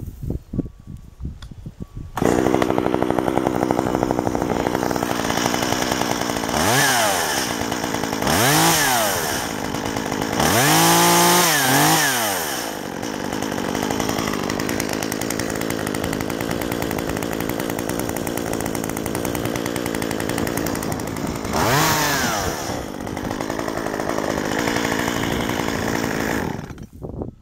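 Stihl MS 193T top-handle two-stroke chainsaw started warm. It catches about two seconds in, runs steadily, is revved up and back down four times (the third rev held longest), then is shut off near the end. Its limiter caps are off and the high-speed mixture screw is richened, so it tops out at about 11,700 rpm rather than running lean at the factory 12,500.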